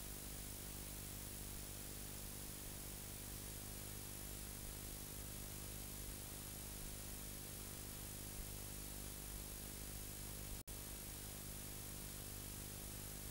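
Faint steady hiss with a low electrical hum under it, the background noise of a recording with no programme sound yet; it cuts out completely for a split second about ten and a half seconds in.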